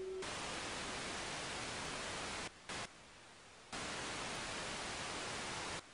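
Analog television static: an even white-noise hiss that cuts out suddenly about two and a half seconds in, blips back for a moment, returns about a second later, and stops just before the end.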